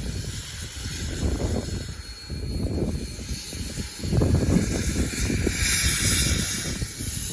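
Steam hissing from steam locomotive No. 20, over a low, uneven rumble that grows louder about halfway through.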